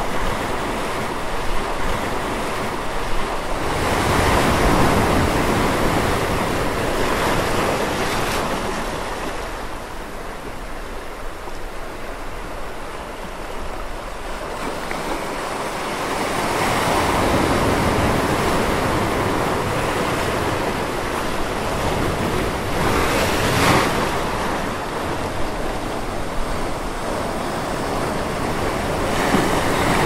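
Ocean surf breaking and washing over a rocky beach: a steady rush that swells and ebbs as each wave comes in, with a sharper surge a little past two-thirds of the way through.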